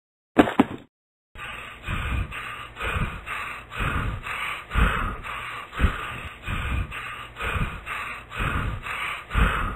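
Two quick thumps, then a cartoon dog panting quickly and steadily with its tongue out, about two pants a second.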